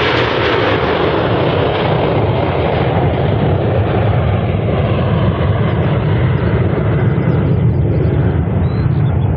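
Takeoff noise from a Fokker jet airliner's two rear-mounted Rolls-Royce Tay turbofans at climb power: a loud, steady roar with a deep rumble. It slowly loses its high end as the aircraft climbs away.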